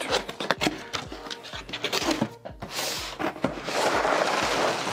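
A cardboard box being opened and plastic bags of building-block parts being handled: quick clicks and crinkles, then a louder stretch of rustling near the end, over background music.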